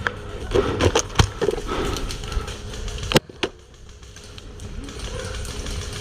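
Rustling and clatter with a few sharp clicks, the loudest about three seconds in, over a low rumble.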